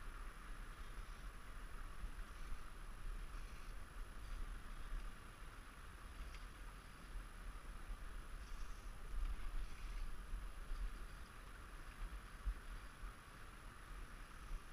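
Steady hiss with an uneven low rumble, the wind and handling noise of a camera microphone held close to a fly rod and reel, with a few faint clicks scattered through.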